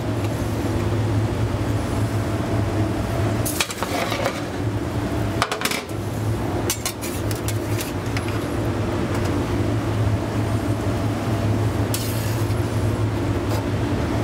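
Metal utensil clinking and scraping against a sauté pan and plates as portions of poached fish are lifted out and plated. The clinks come a few at a time, several seconds apart, over a steady low hum.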